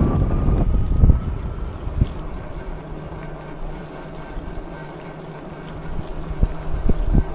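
Wind buffeting the microphone of a handlebar camera on a moving bicycle. It is heaviest in the first couple of seconds and again near the end, and eases in the middle, where a faint steady hum can be heard.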